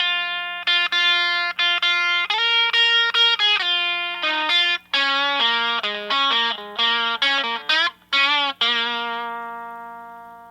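Electric guitar, a Fender Stratocaster through a Distortion Bender fuzz/distortion pedal into a Fender Blues Junior amp, playing a quick single-note lead phrase. It ends on a held note that rings and fades away over the last couple of seconds. The distortion is turned down for a gritty, near-clean tone, and a faint steady hum sits underneath.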